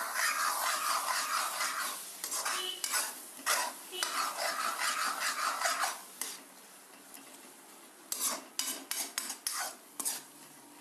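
A metal spatula stirs onion, capsicum and tomato masala in a metal kadai. The food sizzles strongly for the first six seconds, then quietens, with a run of quick scrapes and taps of the spatula against the pan near the end.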